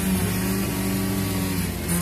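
Car engine running at steady, raised revs, with its pitch holding and then shifting slightly near the end.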